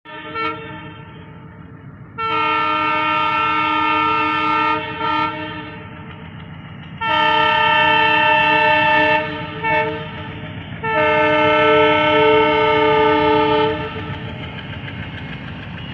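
Train horn on a locomotive crossing a river viaduct: a short toot at the start, then three long blasts of two to three seconds each, with brief toots between them, over a steady low rumble.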